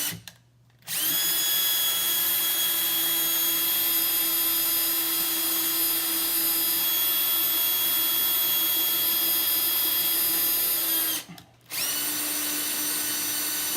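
Electric drill boring pilot holes for knob screws into a painted wooden cabinet through a drilling template: a short burst, a brief stop, a steady run of about ten seconds, then after a short pause another run. The motor's whine rises in pitch each time it spins up.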